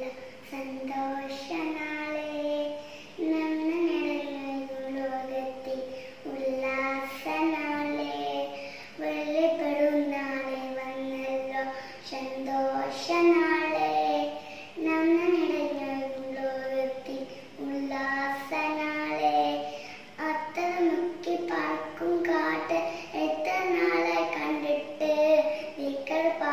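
A young girl singing a song alone, with no instruments, in continuous phrases broken by short pauses for breath.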